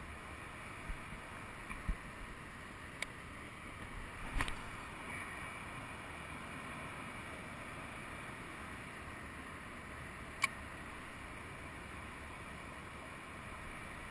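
Faint, steady outdoor background noise with a handful of short, sharp clicks from the handling of a fishing rod and reel during a lure retrieve.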